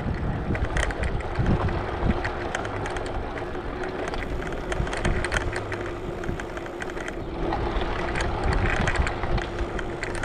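Shared bicycle rolling over a paving-stone path: a low rumble with frequent small rattling clicks. A faint steady hum joins in about four seconds in.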